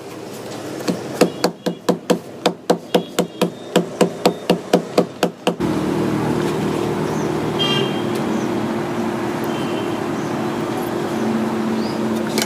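Rapid series of hammer blows, about three to four a second, for several seconds. These stop abruptly, giving way to a steady machine hum with a constant low drone.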